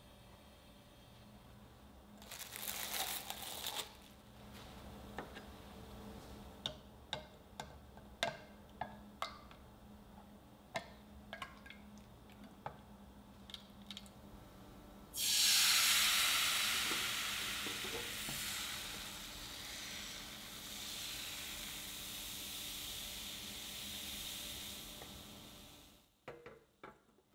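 Crepe batter stirred in a glass measuring jug, with a string of light clicks from the utensil against the glass. About halfway through comes a sudden loud sizzle as the batter hits the hot frying pan, fading slowly as it spreads and sets.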